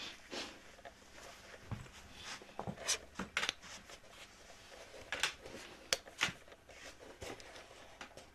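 Irregular light clicks, taps and brief rustles of handling, a dozen or so sharp ticks spread unevenly, several close together around the middle.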